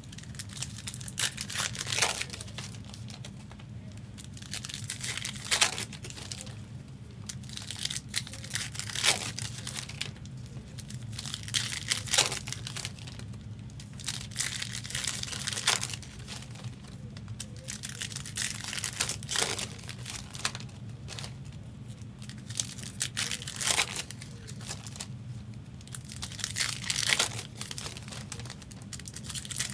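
Foil trading card pack wrappers being torn open and crinkled by hand, in short bursts every couple of seconds, over a steady low hum.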